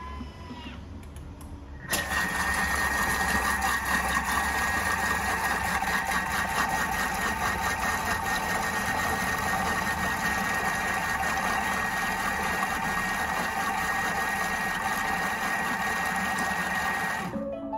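Thermomix TM6 food processor mixing at speed 4 for 15 seconds: a short beep as the dial is pressed, then about two seconds later the motor starts with a steady whine and runs evenly until it stops shortly before the end.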